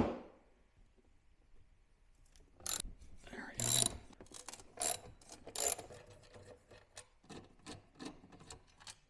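Irregular metallic clicks and knocks of hand tools on a Screamin' Eagle slip-on muffler's end-cap fasteners, as the tip is unfastened to be turned around. A single sharp click comes at the start, then after a pause of about two seconds a longer run of clicks.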